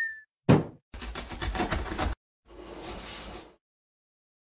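Cartoon sound effects for an animated cardboard box: a sharp thump as the box lands, a quick run of rattling knocks as it shakes, then a soft whoosh.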